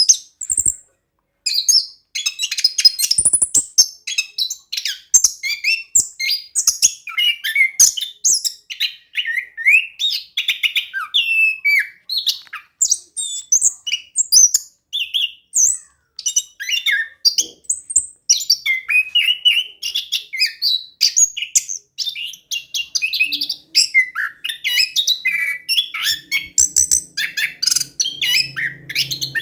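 Orange-headed thrush singing nonstop, a rapid, varied run of whistled and chirping phrases with hardly a pause. A low steady hum comes in near the end.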